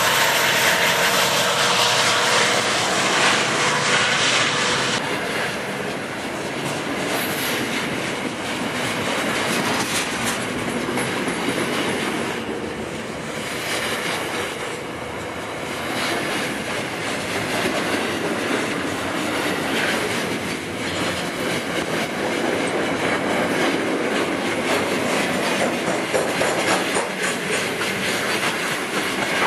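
Freight wagons of a steel train rolling past at close range: steady wheel-on-rail noise with the clickety-clack of wheels over rail joints. A faint wheel squeal is heard in the first five seconds.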